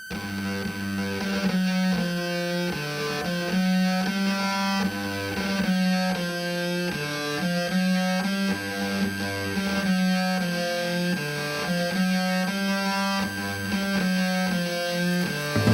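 Music: a repeating guitar riff over a bass line, with a steady high-pitched tone held underneath.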